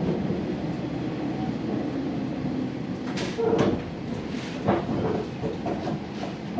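Running noise of a Hanshin 8000-series electric train heard from inside the passenger car: a steady rumble of wheels on the track, with a few sharp clacks from the wheels over rail joints between about three and five seconds in.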